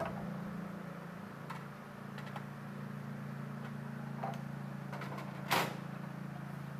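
Faint clicks and taps of a plastic ring light being handled, with one brief louder knock about five and a half seconds in, over a steady low hum.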